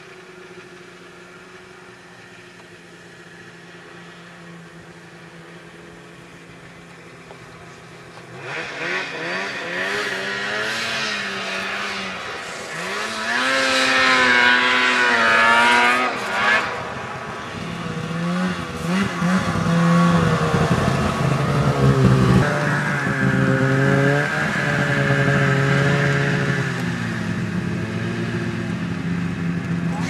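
Snowmobile engines. At first an engine runs fairly quietly and steadily. From about eight seconds in, it gets much louder, its pitch rising and falling as it revs under load, and it stays loud and strong to the end.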